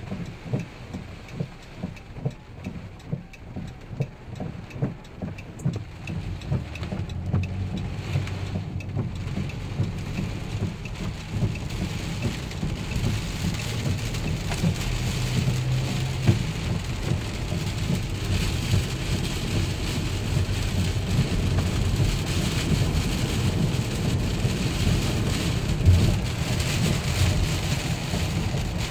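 Hurricane rain and wind beating on a moving car, heard from inside the cabin over a low road rumble. Soft regular thumps come about once every second at first, then the rain grows denser and louder about halfway through.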